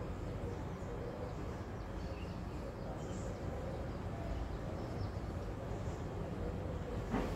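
Steady low background rumble with a faint hum, a few faint high chirps, and one short knock near the end.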